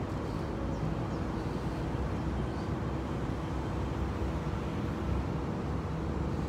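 Steady low outdoor rumble with a faint continuous hum underneath and no distinct events.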